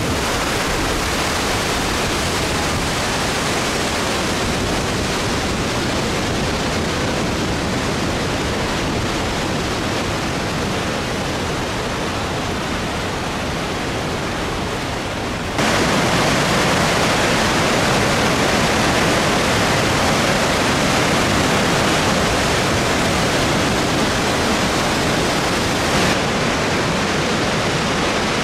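Krka Falls waterfall and its rapids rushing in a steady, dense wash of water noise. About halfway through it suddenly becomes louder and brighter. A single short click comes near the end.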